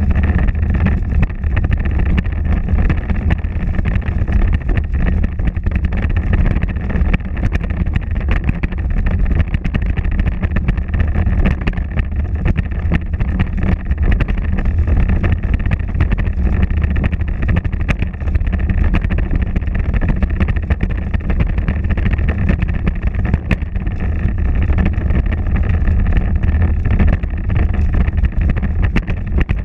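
Power Wheels ride-on toy car running, a steady drone of its electric drive motors and plastic gearboxes with small clicks and knocks throughout.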